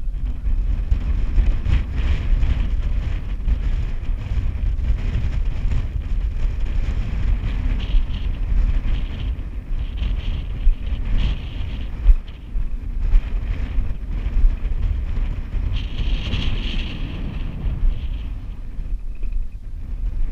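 Wind buffeting the microphone of a body-worn camera: a loud, continuous low rumble that swells and eases in gusts, with a thinner hiss above it.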